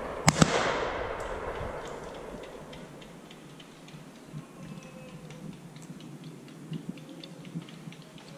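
Two shotgun shots in quick succession, the first about a third of a second in, ringing out and fading over about two seconds, followed by faint scattered ticks and pops.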